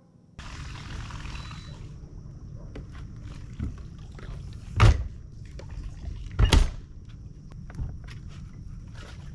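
Knocks and thumps on the front deck of a bass boat as gear is handled at the bow, with two loud thunks about five and six and a half seconds in, over a steady low rumble.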